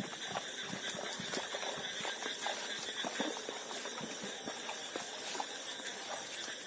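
A steady high-pitched chorus of night insects, with scattered faint clicks and rustles from live crabs and the woven plastic sack they are being dropped into.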